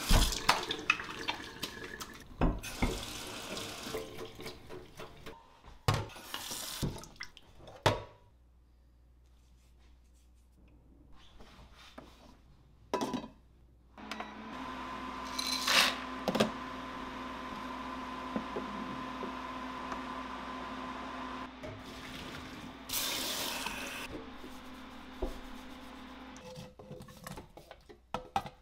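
Kitchen tap running into a stainless steel sink for several seconds. Later an induction cooktop runs with a steady fan hum and a thin whine, with a few clicks and knocks from the pot. Near the end there is a light clatter as cooked penne is tipped from a metal colander into a steel bowl.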